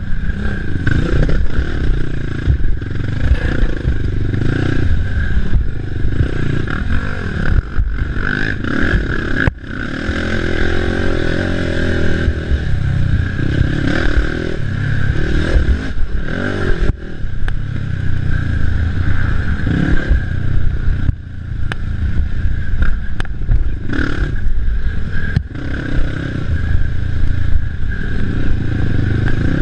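Racing ATV engine running hard, throttle swelling and easing off over and over as it is ridden through rough race terrain, with clattering and scraping mixed in.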